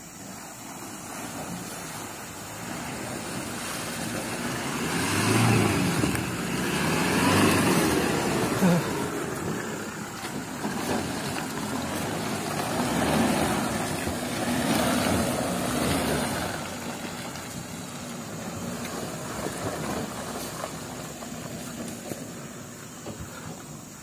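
Toyota Hilux single-cab 4x4 pickup driving up a muddy dirt track, its engine working under load and its tyres churning through mud. It grows louder as it comes close and passes, then fades as it pulls away.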